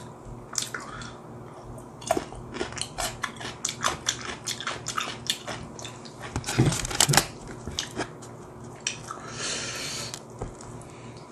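Close-miked eating sounds: chewing, with a run of crackles and taps as hands pull a slice of pizza from its cardboard box. The loudest crackles come about seven seconds in, and a short scraping hiss follows near the end.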